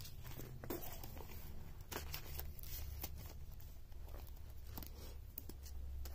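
Crinkling and rustling of clear plastic binder pockets and paper as cash and a paper savings-challenge sheet are slid into a ring cash binder, with scattered soft taps.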